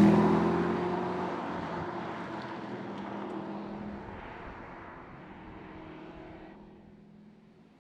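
Mercedes-AMG GT's 4.0-litre twin-turbo V8 passing by, loudest right at the start and then fading away steadily over several seconds as the car drives off.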